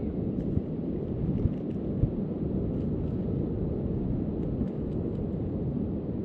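Wind buffeting the microphone: a steady low rumble with a few brief gusts.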